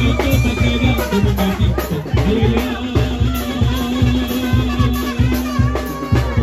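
A live Mexican brass band (banda) playing. A sousaphone pulses a steady bass line under held trumpet and trombone notes, with percussion keeping the beat.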